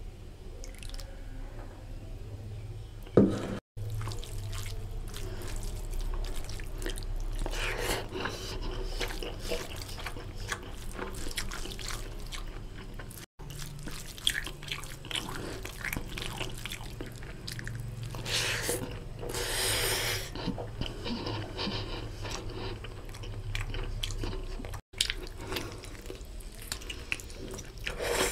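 Wet squishing and dripping of a hand mixing basmati rice with oily mutton curry gravy on a steel plate, with gravy poured from a bowl at the start. There is a sharp knock about three seconds in.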